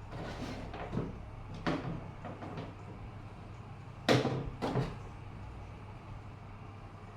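Knocks and clatters of small hard objects being handled, with a sharper, louder pair about four seconds in, over a steady low hum.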